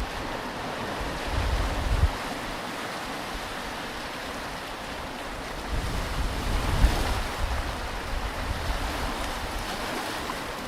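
Ocean surf washing on a beach, a steady rush of breaking waves that swells twice, once just before two seconds in and more strongly around six to seven seconds in.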